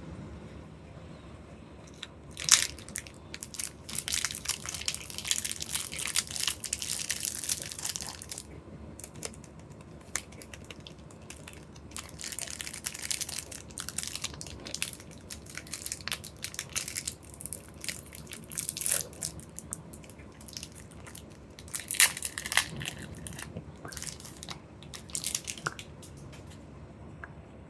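Plastic candy and toy packaging crinkling and crackling as it is handled and opened, in irregular stretches of rustling broken by sharp clicks.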